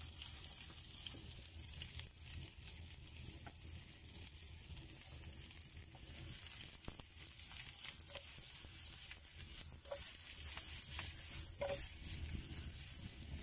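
Sliced onion sizzling steadily in melted butter in a frying pan over a wood fire, with occasional pops.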